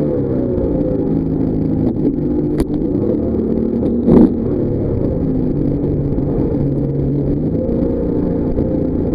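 Jetboat engine running steadily as the boat threads a narrow channel, its revs dipping slightly and recovering. A sharp click comes about two and a half seconds in, and a louder knock about four seconds in as overhanging vegetation strikes the boat.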